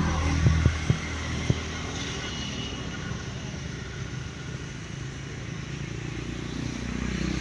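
Road vehicle engine running with a low rumble, with a few sharp knocks in the first second or so. The rumble fades slightly midway and grows louder again near the end.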